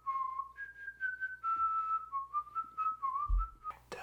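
A person whistling a tune: a string of clear held notes stepping up and down. There is a soft low thump near the end.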